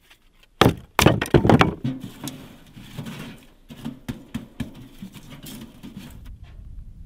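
Split kindling knocking and clattering against a small tent wood stove as it is loaded, with several loud knocks in the first two seconds, then lighter clicks and crackles for a few seconds more.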